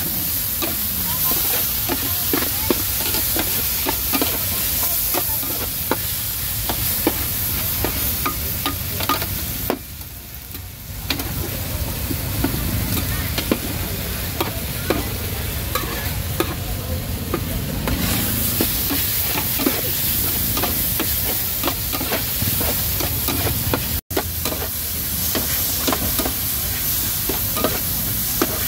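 Short noodles, bean sprouts and greens stir-frying on a large iron griddle pan: a steady sizzle with frequent clicks and scrapes of a metal spatula and tongs against the pan. The sizzle drops away for about a second roughly ten seconds in.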